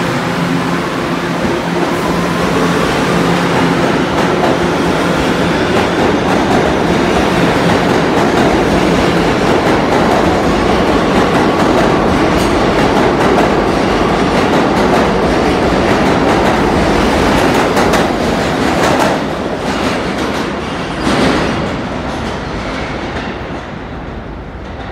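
R211T subway train accelerating out of a station. Its propulsion whine rises in pitch over the first few seconds, then the cars rush past with wheels clacking over the rail joints, and the sound fades near the end as the train goes into the tunnel.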